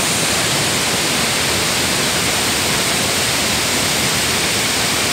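Waterfall heard close up: a steady, loud rush of falling water.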